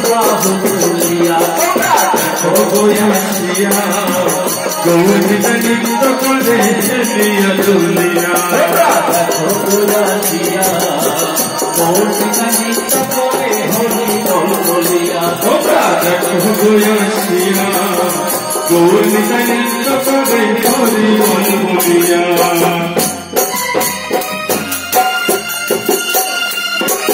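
Devotional kirtan: voices singing a melody together over a fast, steady beat of small metal hand cymbals and jingles, with clapping.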